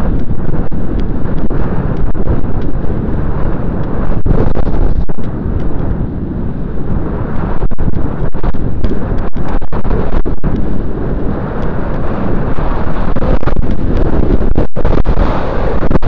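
Loud, gusty wind buffeting the microphone of a helmet camera on a moving bicycle, a rough rumble that eases briefly about five seconds in.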